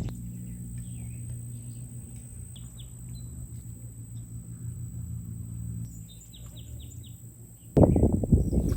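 Small birds chirping in short runs of quick falling notes, over a steady low hum. Near the end a sudden loud rush of noise cuts in.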